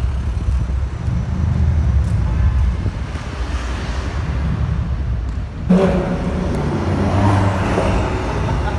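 Maserati Ghibli saloon's engine rumbling at low speed as it drives slowly past, with a sudden jump to louder, fuller engine noise about six seconds in as a car accelerates.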